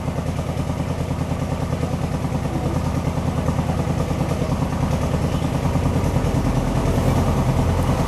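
A motor running steadily at idle, a low hum with an even, rapid pulse.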